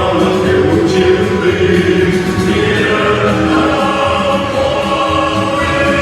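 Choir singing a march song in Vietnamese over musical accompaniment, with long held notes.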